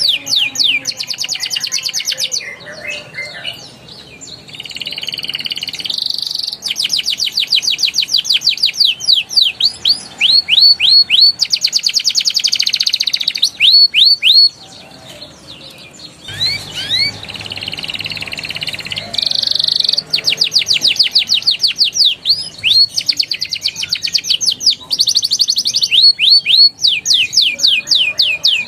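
Domestic canary singing: fast trills of rapidly repeated high notes and rolls, alternating with slower strings of rising whistled notes, breaking off briefly twice.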